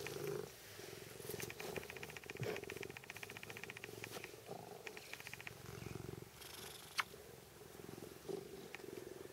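Tonkinese cat purring steadily while being stroked and held, a content purr with fast, even pulsing. One sharp click comes about seven seconds in.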